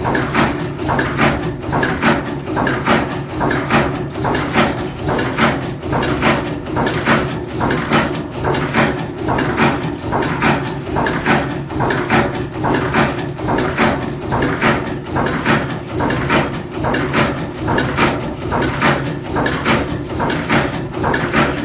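Cold-forging bolt former machine running, its punch striking at an even rhythm of about two strokes a second over a steady machine hum.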